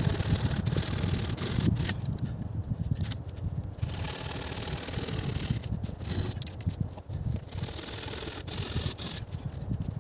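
Irregular rubbing and scraping, with an uneven low rumble underneath and a few sharp clicks.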